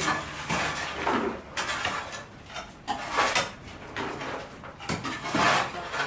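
A hoe digging into soil and gravel: a string of irregular scraping, crunching strokes.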